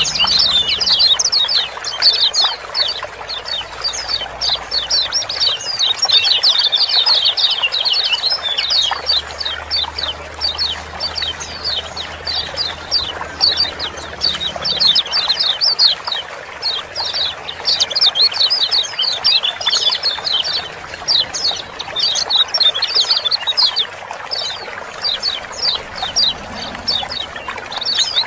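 Kecial kuning white-eyes giving busy, rapid 'ciak-ciak' chirps: a dense run of short, high, downward-sweeping notes, several a second, without pause. Under them runs a steady trickle of flowing water.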